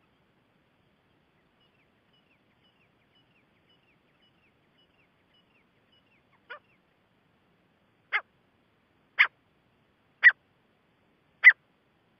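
Gray francolin calling: a faint, quick series of thin high chirps, then one weak note and four sharp calls about a second apart, each louder than the last.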